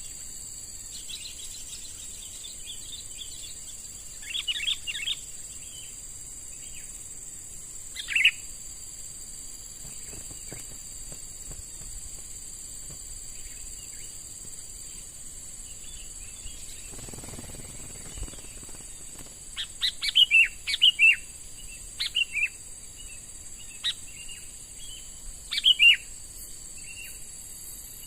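Sooty-headed bulbul (kutilang) giving short clusters of quick chirping calls, spaced out at first and coming thicker and louder near the end. Under it runs a steady high insect drone.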